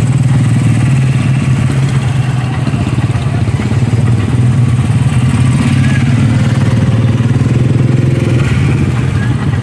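A motor vehicle's engine idling steadily close by, a loud even low hum with a fast regular pulse.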